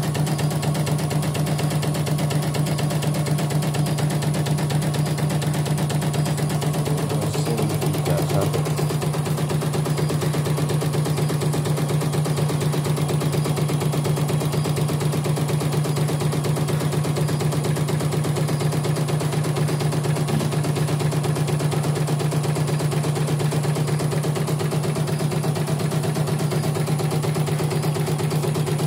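CNY portable embroidery machine stitching a design at a fast, even rhythm, running steadily as a test run after its mainboard was replaced to cure a blank, unresponsive screen.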